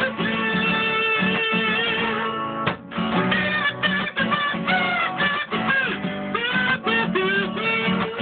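A man sings to his own strummed acoustic guitar, holding one long note for the first couple of seconds before going on with the melody. It is a solo singer-songwriter performance, recorded on an old smartphone, so the sound is cut off at the top.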